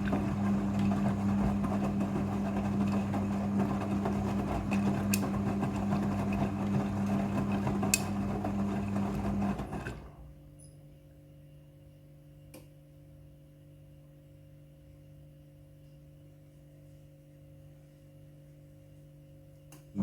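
Midea front-loading washing machine running its rinse cycle: a steady electrical hum with a rushing wash noise, which stops abruptly about halfway through, leaving a faint hum and a single click during the pause.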